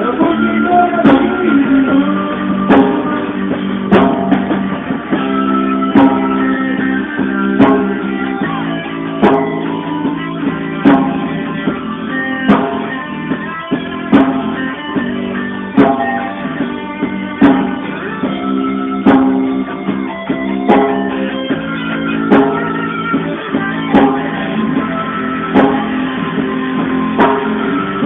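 A live band plays an instrumental passage led by guitar, over a steady beat. The recording sounds dull and muffled, with the highs cut off.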